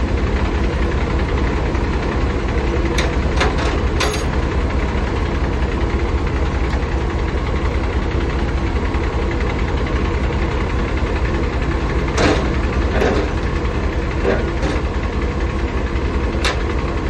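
Heavy diesel engine of a 2018 Peterbilt truck idling steadily, with a deep, even drone. A few sharp clicks and clanks cut through it, a cluster a few seconds in, more around two-thirds of the way through and one near the end.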